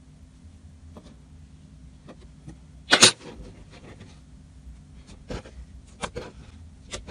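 Slime being handled by hand, giving scattered short pops and clicks, the loudest about three seconds in, over a faint low hum.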